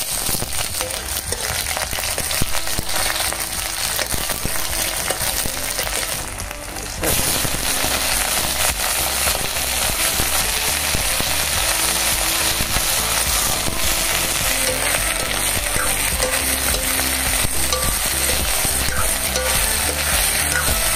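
Onions, then chunks of bottle gourd with green peas, sizzling and crackling in hot oil in a black iron kadhai, with a metal spatula stirring and scraping the pan. The sizzle gets louder about a third of the way in.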